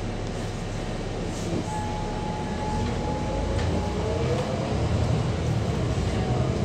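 Double-decker bus in motion, heard from inside on the upper deck: a continuous engine and road rumble. A steady high tone holds for about two seconds mid-way, then a whine rises in pitch from about four seconds in as the bus picks up speed, growing louder.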